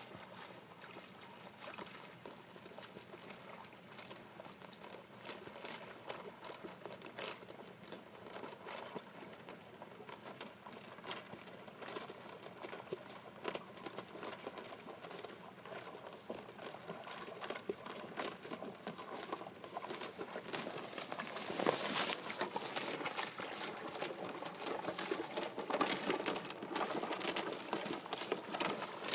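Thin skim ice cracking and tinkling as a Brittany spaniel swims and breaks a channel through it, with water splashing, a dense steady crackle. It grows louder in the second half as the dog comes closer.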